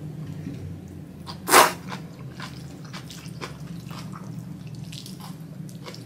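Close-miked mouth sounds of eating thick ramen noodles: small wet clicks of chewing, with one short, loud hissing burst about a second and a half in.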